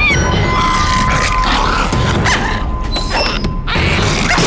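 Cartoon sound effects of a storage crate being handled: creaking and mechanical clanks, with background music.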